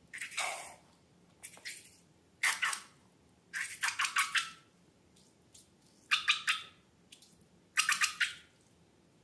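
Slime being squeezed and worked, giving about six short bursts of crackling, squelching pops with quiet gaps between.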